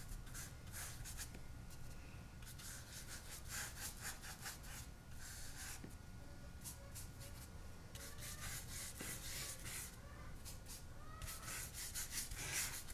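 Paintbrush strokes of acrylic paint on smooth hot-press watercolour paper: a run of faint, short brushing swishes. In the second half, faint clucking from chickens in the background.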